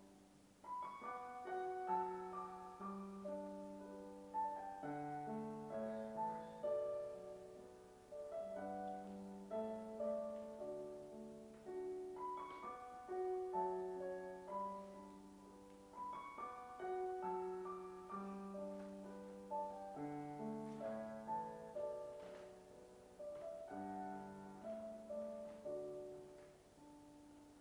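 Slow solo piano music: a gentle melody over held chords, with notes struck one after another and ringing away.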